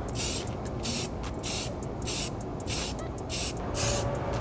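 Aerosol spray paint can hissing in about seven short bursts, roughly one every half second.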